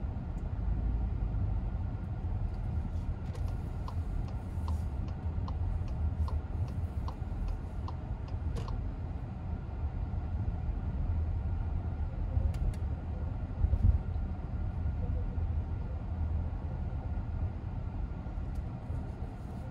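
Low rumble of a Skoda Kodiaq's engine and tyres heard inside the cabin while driving slowly through town. From about three to nine seconds in, the turn-signal indicator ticks evenly at about a tick and a half per second. About two-thirds of the way through there is a short low thump.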